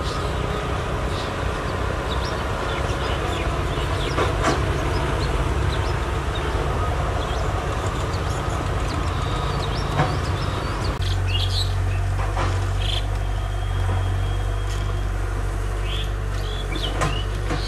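Steady low outdoor rumble with scattered bird chirps. The background changes abruptly about eleven seconds in, after which the chirps become more frequent.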